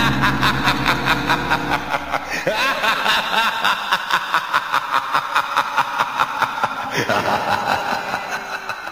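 Spooky Halloween intro sting: a rapid, evenly pulsed cackling laugh over ringing music, fading toward the end.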